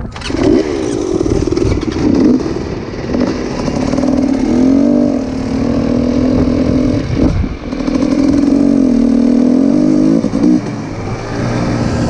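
Dirt bike engine revving as it pulls away and accelerates, its pitch climbing and dropping back several times as it goes up through the gears.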